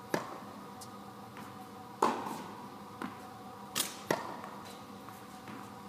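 Tennis racket strikes on balls during basket feeding: a sharp racket-on-ball hit about every two seconds, with fainter knocks of bounces and returns in between, echoing in an indoor tennis hall.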